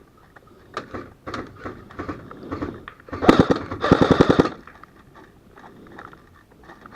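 Airsoft gun firing on full auto: two quick bursts of rapid shots about three seconds in, after a few scattered single pops.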